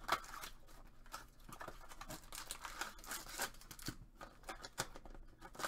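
Packaging of a sealed Topps Finest trading-card mini-box crinkling and tearing as hands open it and pull out the packs: a run of short rustles and rips.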